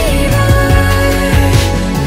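Background music with a bass line and a held melody over a steady beat.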